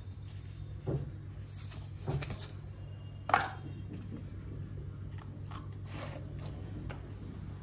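Box and packaging being handled and opened: a few scattered knocks and rustles, the loudest about three seconds in, over a steady low hum.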